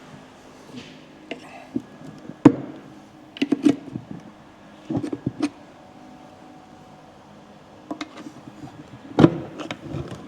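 Irregular sharp metal clinks and knocks from a pry tool working around the glued seam of a transmission case to split its halves. They come in short clusters, the loudest about a quarter of the way in and another strong group near the end, over a faint steady hum.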